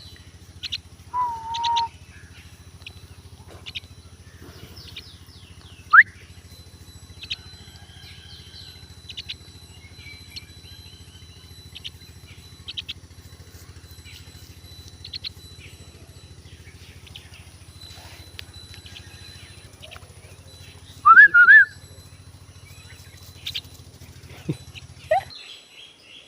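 Myna chick calling: scattered short, sharp chirps and squawks, the loudest a quick cluster of calls near the end. A steady low hum runs underneath and stops shortly before the end.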